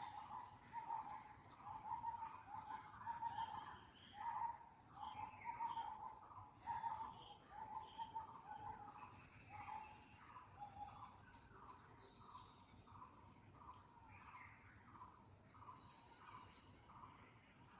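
A bird gives a rapid run of short repeated calls, about two a second, which grow fainter after about ten seconds. A steady high insect drone runs underneath.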